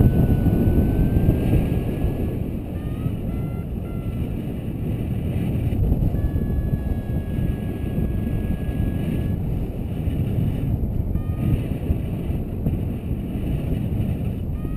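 Wind rushing over the microphone of a paraglider in flight, with a variometer's faint electronic beeps and tones stepping up and down in pitch underneath.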